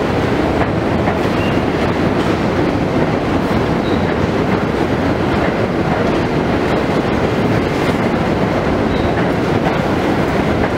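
A New York City subway train running on the rails: a steady, loud rumble of wheels on track.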